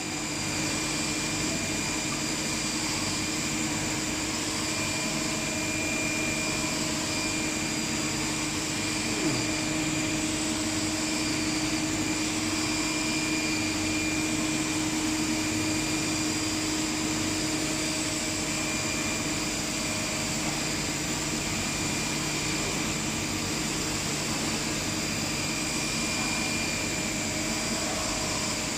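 Steady hum and whine of CNC machine tools running in a machining shop, with several steady high tones over a constant noise. One brief blip with a short falling sweep about nine seconds in.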